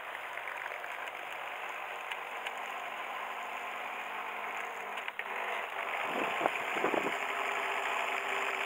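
Small motor of a radio-controlled model boat running steadily as the boat is driven across a pond, getting louder in the last few seconds.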